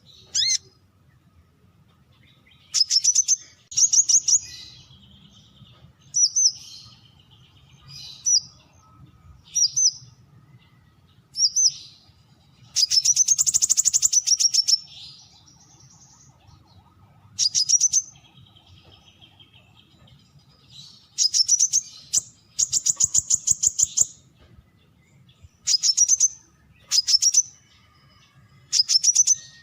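Brown-throated sunbird calling: short bursts of rapid, high chirping notes repeated every second or two, with a longer run of fast notes about halfway through.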